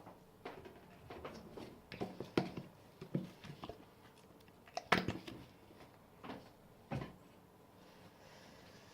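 Irregular short knocks and clicks of objects being handled and set down, the loudest about two and a half and five seconds in.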